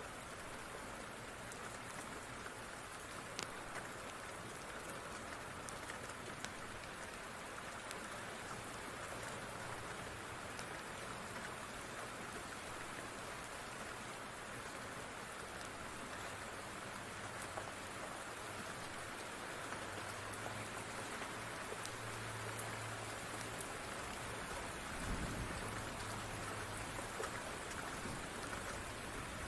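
Steady rain falling, with scattered small sharp crackles from a wood fire. A brief low thump comes near the end.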